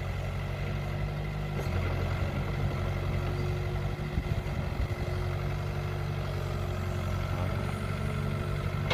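Kobelco hydraulic excavator's diesel engine running steadily, a low even drone with a thin steady tone over it.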